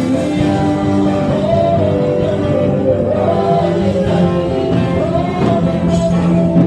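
A small gospel choir singing a worship song through microphones, with a live band of keyboard and drums accompanying. The sung melody is held and gliding, at a steady, loud level.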